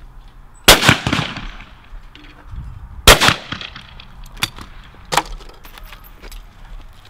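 Two shotgun shots from a Longthorne 12-bore break-action shotgun, about two and a half seconds apart, each with a ringing tail. Then two short sharp clicks as the action is opened.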